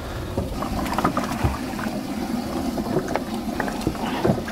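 Short knocks and handling sounds at a bass boat's open live well as a bass is lifted out, over a steady background hiss of water and wind.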